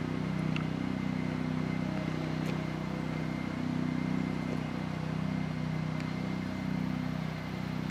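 A steady, low motor drone that does not change in pitch or loudness.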